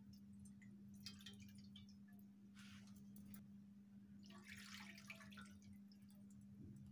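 Faint splashing of water poured from a cup into a frying pan, in a few short spells, under a steady low hum.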